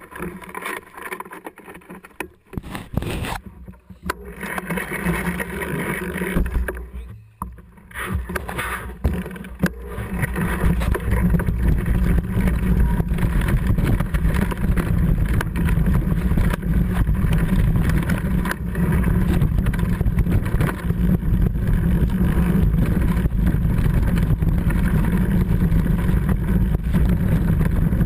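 Mountain bike riding a rough, rocky trail: tyre and trail rumble with wind buffeting the camera's microphone, uneven and broken up at first, then steady and louder from about ten seconds in as the bike picks up speed.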